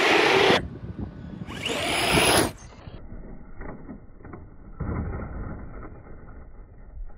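Electric motor of a Traxxas Bigfoot RC monster truck whining up in pitch as it accelerates, twice in the first two and a half seconds. About five seconds in, a thump and a short scrabble of tyres as the truck lands on the trailer roof.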